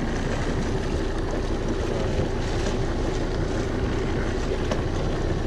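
Steady noise on a small boat: a low engine hum under wind buffeting the microphone.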